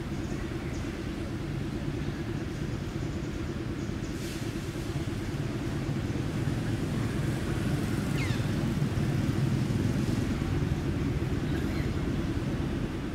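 Steady low rumble, a little louder in the second half, with a few faint short high-pitched chirps over it.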